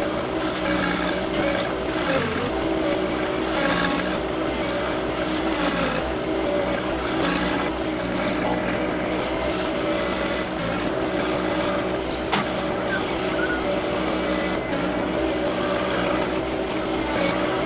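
John Deere 2025R compact tractor's three-cylinder diesel engine running steadily while working the backhoe, its pitch dipping briefly a few times in the first two seconds as it takes load. A single sharp knock about twelve seconds in.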